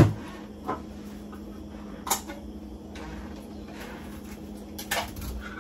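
Kitchen prep handling sounds: a few scattered light clicks and knocks, the clearest about two seconds in and another pair near the end, over a steady low hum.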